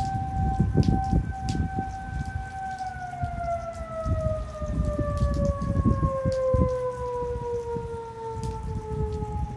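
Outdoor tornado warning siren holding a steady tone, then winding down, falling slowly in pitch from about three seconds in. Gusts of wind rumble on the microphone.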